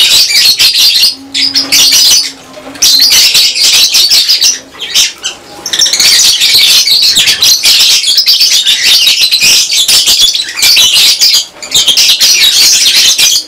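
A flock of lovebirds chattering together in a dense stream of high chirps and squawks, with brief lulls about two and five seconds in.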